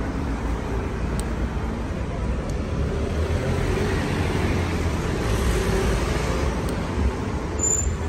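Road traffic running past, a steady rumble with a rush that rises and fades around the middle as one vehicle passes close.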